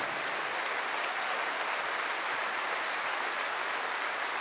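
A large audience applauding steadily: dense, even clapping from a full hall.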